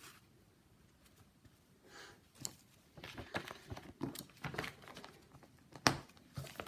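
Faint rustling and crinkling, with scattered light clicks, as cross-stitch fabric and projects are handled and put away. It begins about two seconds in.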